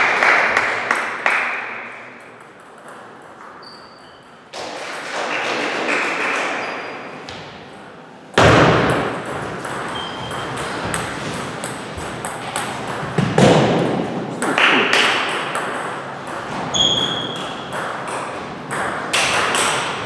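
Table tennis ball being hit back and forth in doubles rallies: quick sharp clicks of the ball off the bats and the table, in runs with short breaks between points.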